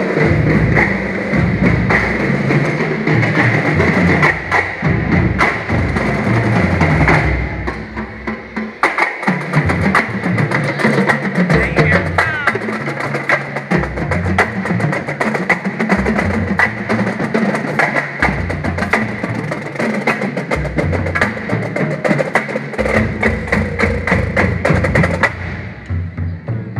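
School drumline playing a cadence on snare and tenor drums, a steady run of sharp stick strokes over low drum notes that step up and down. The sound is fuller and denser for the first seven seconds or so, then thins to cleaner drum hits and tails off near the end.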